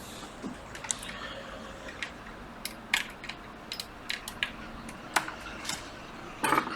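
Small, sharp clicks and taps of tools and phone parts being handled, scattered irregularly, with a louder cluster near the end.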